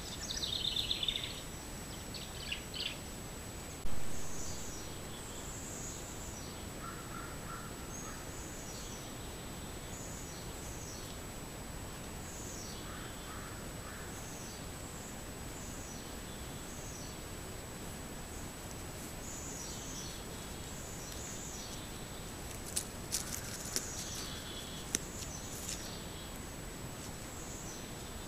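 Scattered bird calls over the steady hiss of a trail camera's microphone, with a faint steady high whine. A loud knock about four seconds in fades over half a second, and a few sharp clicks come near the end.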